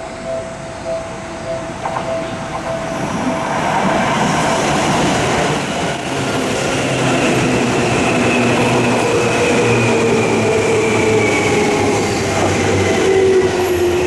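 Electric train on the Seibu Ikebukuro Line running past at close range, its wheels and running noise growing loud a few seconds in, with a motor whine that falls slowly in pitch as the train slows. A level-crossing alarm bell rings in a steady repeating pulse at the start, then is drowned out by the train.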